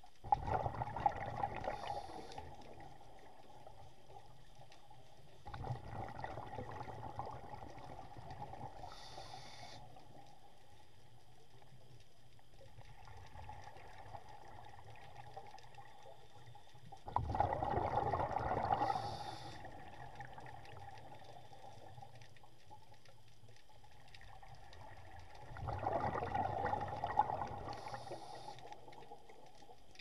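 Scuba diver breathing through a regulator underwater: four long bubbling exhalations about eight seconds apart, each with a short higher hiss near its end.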